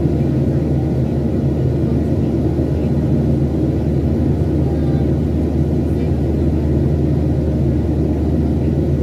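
Steady cabin noise of a Boeing 737-800 in flight, the low hum of its CFM56 turbofans and airflow heard inside the passenger cabin, holding an even level throughout.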